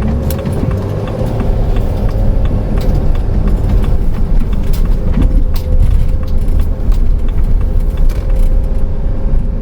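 Inside a moving camper van's cab: steady engine and road rumble, with light clicks and rattles all through.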